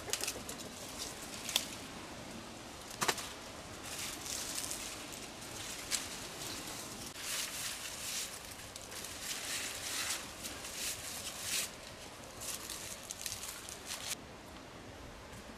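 Leafy hazel branches rustling in bursts as hazelnut clusters are pulled off by hand, with a few sharp clicks among them. The rustling stops abruptly near the end, leaving a quieter steady outdoor hiss.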